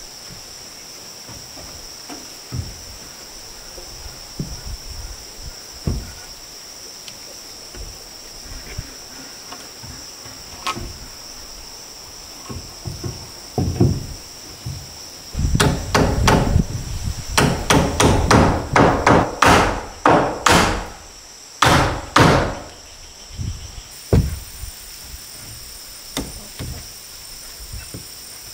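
Hammer blows on wood: a few scattered knocks at first, then a quick run of strikes about halfway through that thins out again near the end. A steady high insect drone runs underneath.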